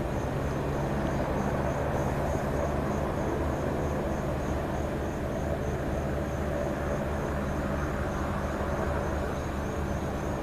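Electric fan running steadily: a low motor hum under a rush of air, with a faint, fast, regular high-pitched tick.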